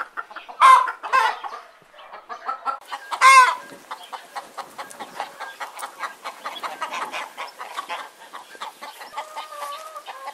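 Chickens clucking: a few loud squawking calls in the first few seconds, then a steady run of quieter, rapid clucks.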